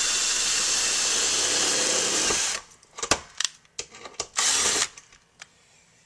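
Cordless drill driving a number 14 self-drilling sheet metal screw into the steel of a garage door, spinning at high speed for about two and a half seconds, then stopping. A few sharp clicks follow, then a second short burst of the drill as the screw is snugged down.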